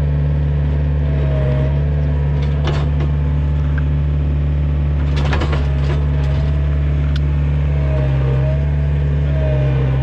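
Takeuchi TL130 track loader's diesel engine running steadily under load, with a faint whine wavering up and down, while it pushes against a tree. A few short sharp knocks sound about three seconds in and again about five seconds in.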